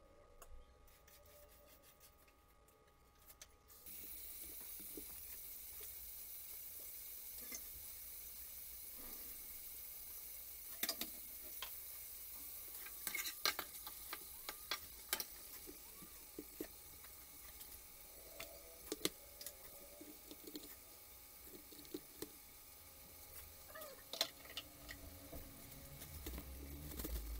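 Food sizzling in hot oil in a cooking pot, a steady hiss that starts suddenly about four seconds in, with scattered clinks and scrapes of a utensil against the pot.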